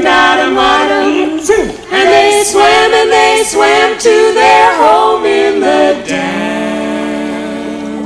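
A mixed trio of two women and a man singing a close-harmony vocal phrase with little accompaniment, ending on a chord held steadily from about six seconds in.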